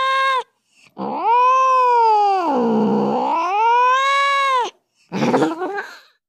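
Domestic cat's angry yowling: a yowl that breaks off just after the start, then one long drawn-out yowl that sinks low in pitch in the middle and rises again. A shorter, rougher cry follows about half a second later, then the sound stops.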